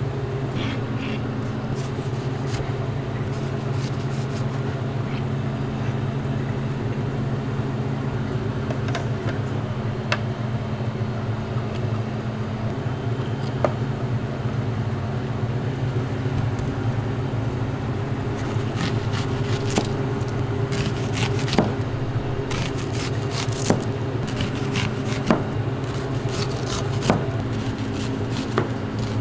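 Steady hum of kitchen machinery, such as an exhaust hood fan, running throughout. From about two-thirds of the way in, frequent sharp clicks and scrapes of utensils are heard.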